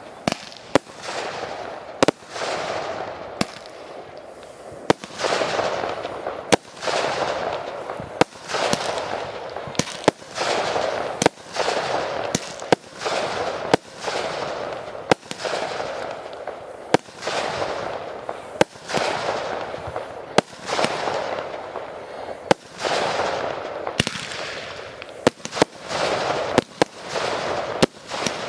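Fireworks display: aerial shells bursting with sharp bangs every second or two, each followed by about a second of fading hiss. The bangs come faster and closer together near the end.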